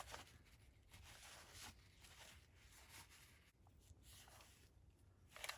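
Near silence, with faint, brief rustles and light handling noises and a slightly louder rustle near the end.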